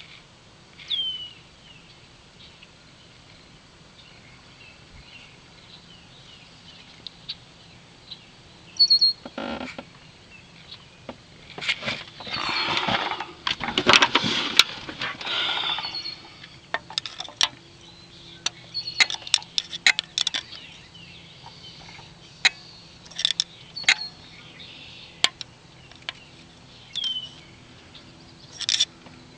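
Birds chirping now and then, with scattered sharp clicks and knocks and a few seconds of rustling handling noise about halfway through.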